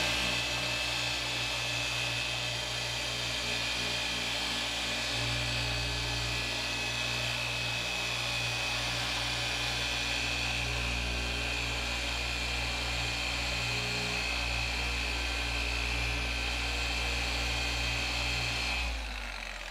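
Dual action polisher running steadily at low speed with a constant whine and low hum, its foam pad held still against the car's paint to prime the pad with polish. It winds down near the end.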